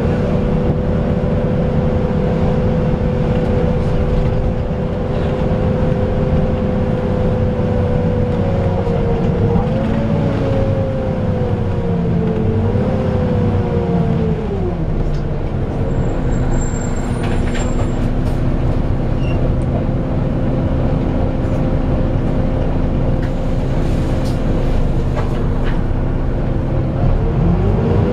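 Cooling fan of a Volvo B9TL / Wright Eclipse Gemini double-decker bus whining like a vacuum cleaner over the running engine, heard from inside the cabin as the bus drives. The whine wavers, drops to a lower steady pitch about halfway through, and rises again near the end.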